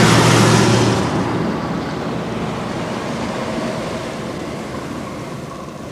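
Concrete mixer truck driving past close by, its engine and tyres loudest in the first second, then fading to a steady background rush.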